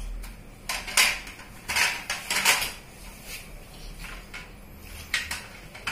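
Plastic shape blocks and a plastic shape-sorter cube knocking and clacking together in an irregular string of sharp clicks as a toddler handles them, trying to fit a piece into the cube.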